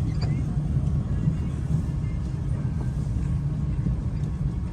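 Steady low rumble of a vehicle running, with faint background noise.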